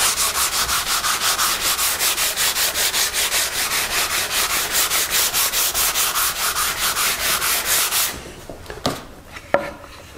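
Sandpaper rubbed by hand along the side of an oak box in quick, even back-and-forth strokes, about six a second. The sanding stops about eight seconds in, followed by a couple of light knocks.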